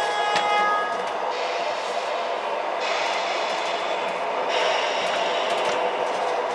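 MTH Proto-Sound 3 O-gauge model streetcars running on the track loop, with a steady running sound of motors and wheels on the rails. A held horn sound from one of the cars cuts off about a second in.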